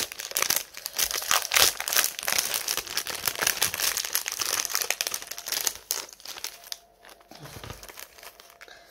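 Thin plastic packaging crinkling and rustling as hands handle the small zip-lock bags of diamond painting drills on the plastic-covered canvas. The crinkling is dense for about six seconds, then dies down to occasional soft rustles.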